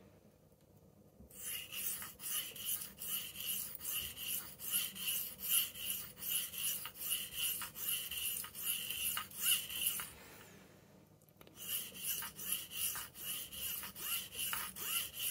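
Soft-steel Victorinox knife blade stroked back and forth on a wet 600-grit Atoma diamond plate, sharpening its dulled edge. A rapid scratchy rasp at about two to three strokes a second starts about a second in, stops briefly about two-thirds of the way through, then resumes.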